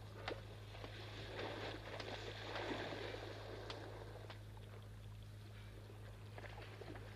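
Faint water lapping against the hull of a moored wooden sailing ship, with a few small clicks and a steady low hum underneath.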